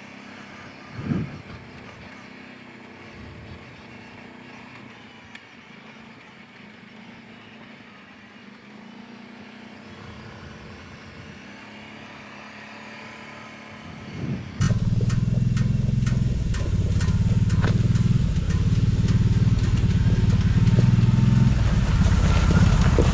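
Kawasaki Brute Force 750 ATV's V-twin engine running, after a long stretch of only faint low noise. About two-thirds of the way through it cuts in abruptly and loud, a steady low rumble with scattered sharp clicks over it.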